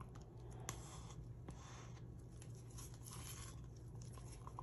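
Faint, irregular scraping and rubbing of hands handling craft supplies on a work table, with one small click, over a low steady hum.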